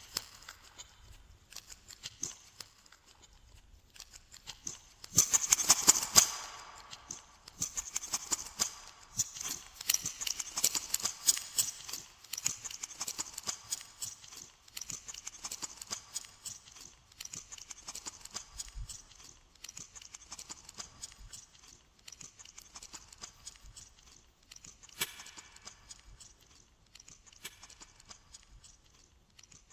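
Glossy slime being squished and worked by hand, giving a stream of sticky clicks, crackles and small pops. They are densest and loudest about five to six seconds in, stay busy for several seconds, then thin out.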